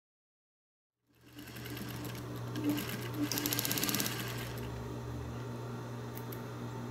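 Table-mounted industrial sewing machine: the motor hum cuts in about a second in and runs steadily, with a quick burst of rapid stitching about two to four seconds in as the needle runs along a hem in curtain fabric.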